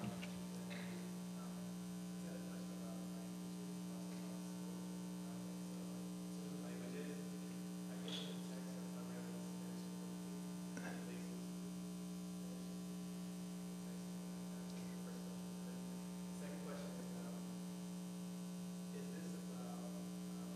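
Steady electrical mains hum in the sound system, with faint, distant speech underneath.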